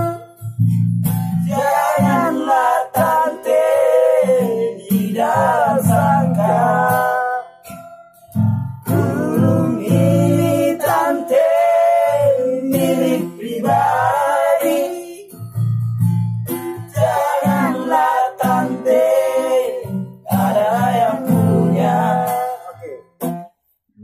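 A man singing a Batak song, accompanied by a strummed nylon-string classical guitar. The sung phrases come with short breaks between them while the guitar keeps going.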